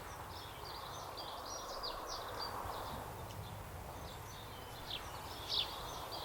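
Small birds chirping: a run of short high chirps in the first two seconds and a few louder, sharper calls near the end, over a steady outdoor background hiss.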